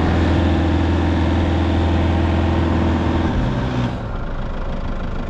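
Four-wheel drive's engine held at high revs while its wheels spin in soft sand, with the hiss of sand spraying off the tyre: the vehicle is bogging down on a sand hill with its tyres still at road pressure. The revs drop about three and a half seconds in.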